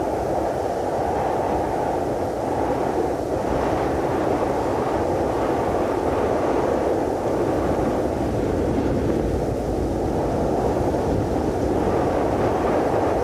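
Cold wind sound effect: a steady, low rushing wind with gentle swells.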